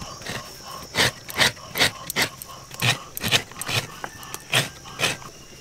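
Fresh coconut flesh being scraped out of a half-shell on a grater, about nine short rasping strokes at an uneven pace.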